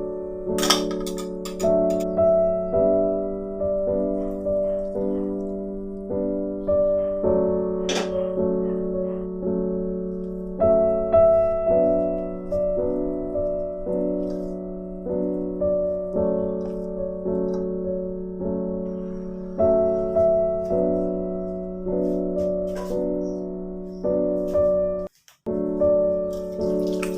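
Background piano music: a slow, gentle melody over sustained chords, notes struck about once or twice a second, with a brief break about 25 seconds in. A couple of faint clicks are heard near the start and about 8 seconds in.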